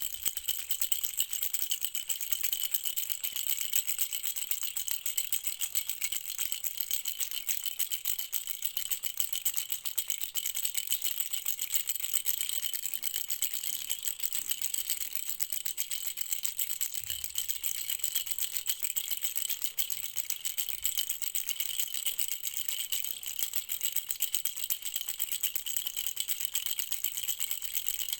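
A rattle shaken steadily and without pause, giving a dense, bright, even rattling.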